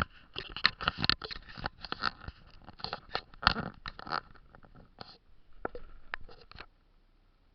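Close, irregular crackling and scraping rustle right at the microphone, stopping suddenly near the end.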